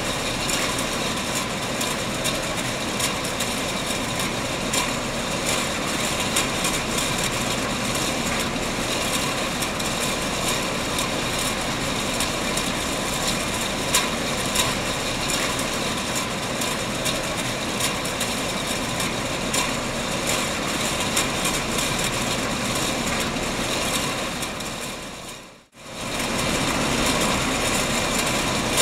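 Canning-line machinery running steadily, with frequent light clicks of empty tin cans moving along the conveyors. The noise drops away for a moment near the end and comes back.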